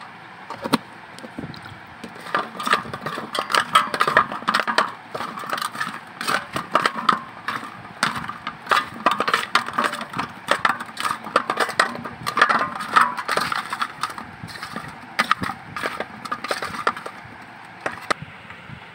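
Turmeric-coated raw green banana (plantain) pieces being mixed by hand in a steel bowl: a long run of irregular clicks and knocks as the pieces and fingers hit and scrape the metal. It stops shortly before the end.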